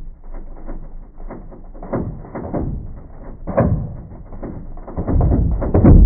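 Sonified seismic waves from the Reykjanes Peninsula earthquake swarm, with the ground's vibrations sped up into audible pitches: a dense, muffled crackle of knocks and cracks. Deep booms come about two and three and a half seconds in, and a heavier rumbling boom builds near the end, like slamming doors and distant explosions.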